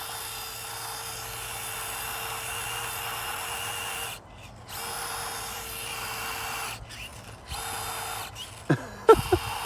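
Axial SCX24 Deadbolt micro crawler's small brushed electric motor and drivetrain whining under throttle, cutting out briefly twice as the throttle is let off. The truck is struggling on a sandy mound, its tyres lacking grip with sand on top. A few brief sharp sounds come near the end.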